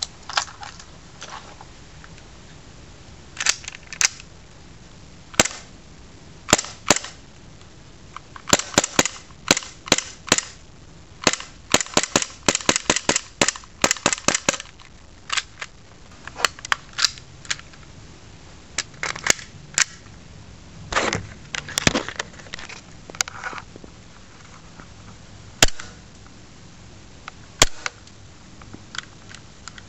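KJW Glock 23 green-gas blowback airsoft pistol firing, each shot a sharp crack with the slide cycling. Single shots and short quick strings, with a fast run of shots near the middle.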